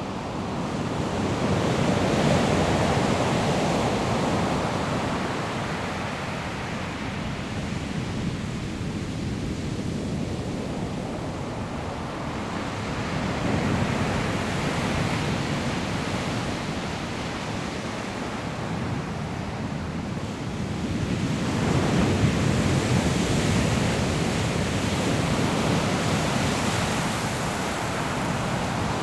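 Sea waves breaking on a pebble shore: a steady rush of surf that swells three times as waves come in.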